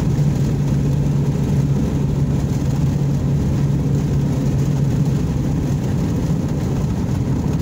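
Engine and road noise inside the cabin of a moving car: a steady low rumble with an engine hum that eases off about five seconds in.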